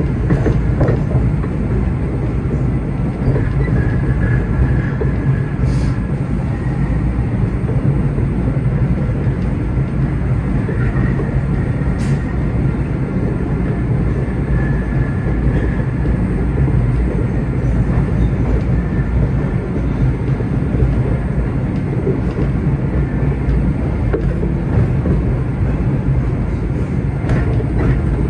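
MBTA Red Line subway car running at speed through a tunnel, heard from inside the car: a loud, steady rumble of wheels on rail. Two sharp clicks come about six seconds apart, and faint high tones come and go.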